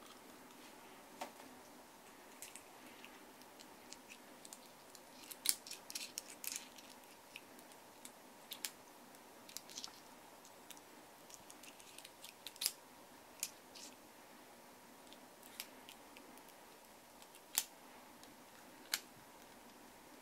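Light, scattered clicks and clinks of brass model-gun cartridges being handled and slipped into the chambers of an opened Type 26 revolver model gun's cylinder, with a quick cluster of clicks about five to six seconds in.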